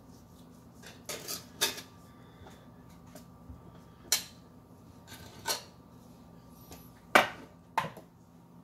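Knife blade knocking down onto a plastic cutting board as raw fish fillet is sliced into strips: about six sharp knocks at irregular intervals, the loudest near the end.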